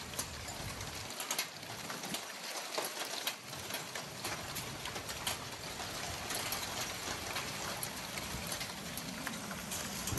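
Hailstorm: a steady hiss of heavy rain, scattered with many sharp ticks of hailstones and drops striking roofs and the wet ground.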